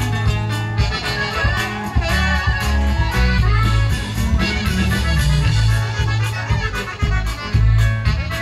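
Live conjunto band playing an instrumental passage: accordion and saxophone carry the melody over a bouncing bass line and drums.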